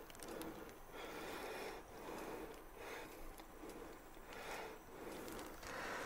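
Breathing in and out through a KF94 mask inside a plastic garbage-bag hood: a regular series of soft, muffled breath rushes, each under a second long.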